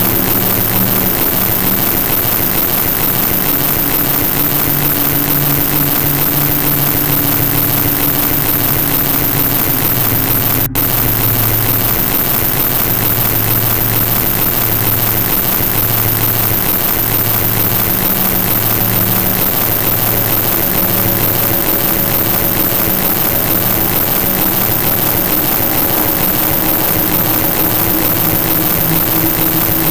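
Loud, steady noise track: an even hiss-like roar with faint low hum tones that shift slowly. It is presented as an esoteric healing noise. There is a momentary break about ten seconds in.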